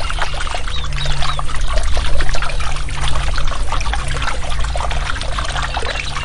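Water splashing and trickling in many small irregular splashes, over a low steady hum.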